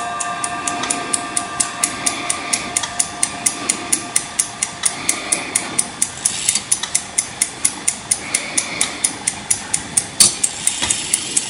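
Five-tone carillon clock movement ticking steadily, about four to five ticks a second, while the ringing of its chime rods slowly fades. A louder click near the end.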